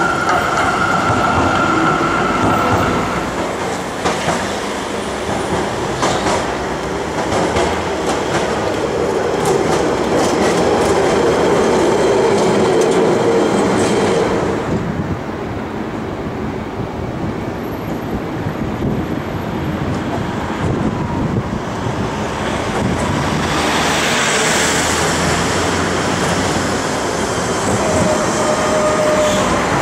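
A Z-class tram runs past on street track, its wheels rattling over the rails, with a steady high squeal in the first few seconds. About halfway through, the sound changes to road traffic, with a vehicle hissing past, and a W-class tram comes in near the end.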